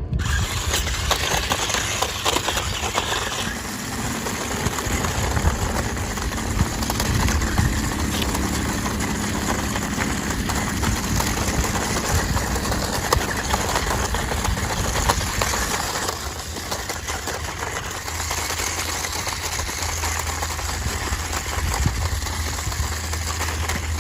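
1/18 scale RC rock crawler's electric motor and gearbox running as the crawler is driven, a steady mechanical whirr over a low rumble.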